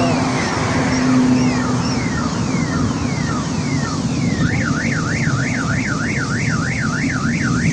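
Car alarm cycling through its tones: a run of falling whoops, about one a second, then from about four seconds in a fast up-and-down warble of nearly three cycles a second. A steady low rumble runs beneath it.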